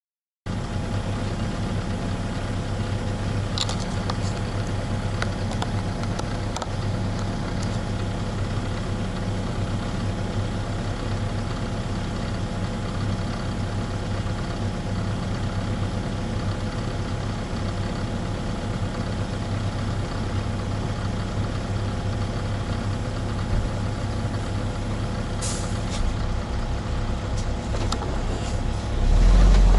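Volvo EW60E wheeled excavator's diesel engine running steadily at idle, heard from inside the cab. There are a few light clicks and a brief hiss. Near the end the engine grows suddenly louder and deeper.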